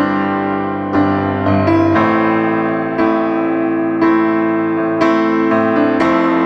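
Background piano music: sustained chords, a new chord struck about once a second.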